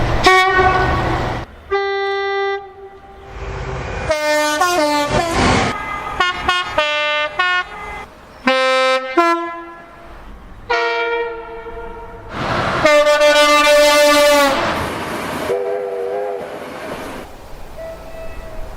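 A run of train horns from several different trains, one after another with abrupt cuts between them. There are short toots, two-tone blasts that step between two pitches, and a long loud blast past the middle over a rushing noise.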